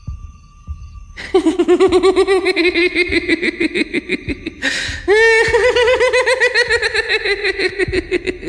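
A high-pitched, eerie cackling laugh, a horror sound effect for the ghost, in two long pulsing stretches. A sharp breath comes between them, about four and a half seconds in.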